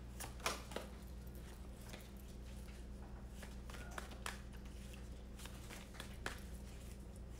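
Faint, scattered taps and light clicks of tarot cards being handled and drawn, over a steady low room hum.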